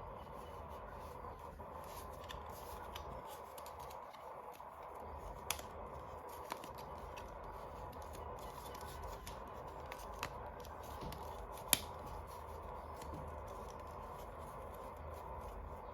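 Toy packaging being handled during an unboxing: about four sharp clicks, the loudest about twelve seconds in, over a faint steady hum.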